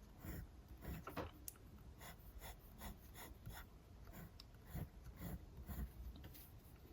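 Faint scratching of a Montblanc Meisterstück 149 fountain pen's 18-karat gold medium nib writing on paper, in short, irregular strokes.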